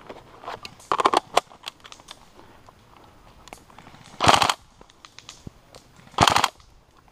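Airsoft electric rifle firing short full-auto bursts: a quick cluster of shots about a second in, then two louder half-second bursts about two seconds apart.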